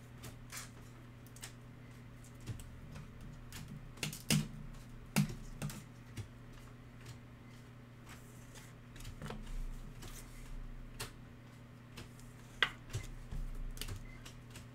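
Trading cards in soft plastic sleeves being handled and slid into rigid plastic toploaders: irregular small clicks, taps and rustles of plastic, with sharper clacks about four, five and twelve and a half seconds in, over a steady low hum.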